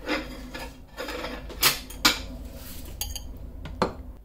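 Spoon scraping and clinking against a grinder jar and bowl as freshly ground chutney is scooped out, with a few sharp clinks.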